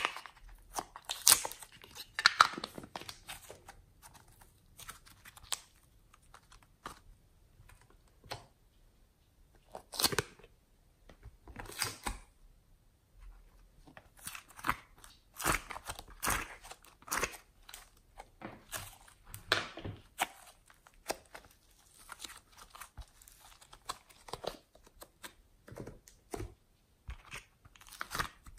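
Thin plastic clay containers being handled and opened, giving irregular clicks, crinkles and tearing-like scrapes, with soft squishes as fingers press into and pry out the play clay.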